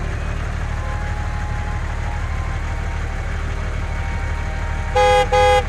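Tractor engine idling with a steady low rumble. A horn beeps twice in quick succession near the end.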